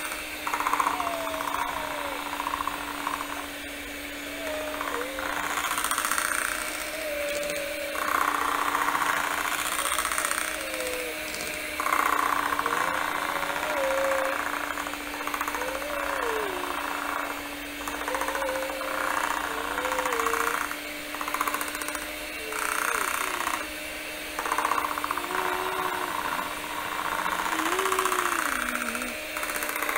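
Electric hand mixer running steadily, its beaters churning chocolate cake batter in a ceramic bowl, the sound swelling and easing every second or two. Short wavering squeaks come as the beaters rub against the side of the bowl.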